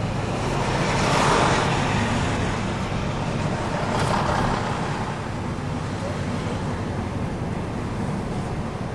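Steady engine and road noise heard inside a moving car's cabin, with two swells of noise, one about a second in and one about four seconds in, as large trucks pass close alongside.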